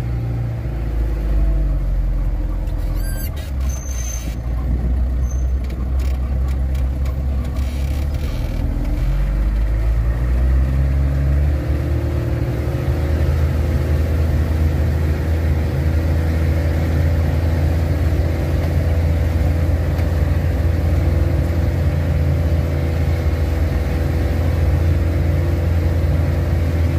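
Engine of a heavily loaded truck running, heard from inside the cab, with some rattles and knocks in the first several seconds. The engine speed rises about ten seconds in and then holds steady.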